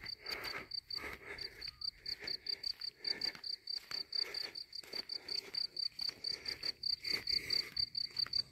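A cricket chirping in a steady, fast run of short, high pulses. Footsteps crunch on a packed dirt road about twice a second.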